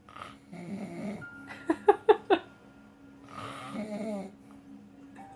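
A man snoring in his sleep with an odd, funky snore: a rasping breath, then a quick run of four loud, sharp pulses about two seconds in, then another breath.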